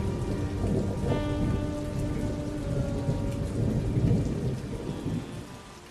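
Rain falling with a long rumble of thunder that swells to its loudest about four seconds in and then dies away. Held musical notes sound underneath.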